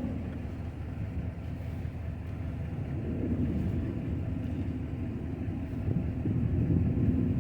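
Truck engine idling, a low steady rumble.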